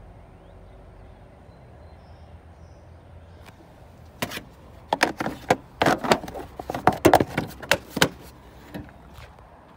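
Plastic underhood fuse box cover on a 2003–2006 Chevy Silverado being handled and pressed into place. It gives a quick run of sharp plastic clicks and knocks, starting about four seconds in and lasting about four seconds.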